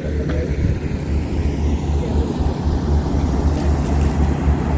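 Wind buffeting the microphone: a loud, uneven low rumble that surges and dips.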